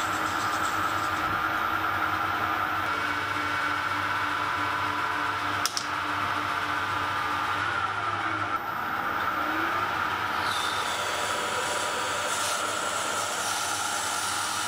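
Small metal-turning lathe running with a steady whine while its tools turn and then drill aluminium bronze stock. A single sharp click comes about halfway through, and a little after that a tone sweeps down and back up.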